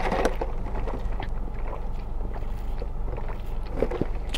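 Steady low hum of a car engine idling, heard inside the cabin, with faint sipping through a straw from a fountain-drink cup and a few small clicks.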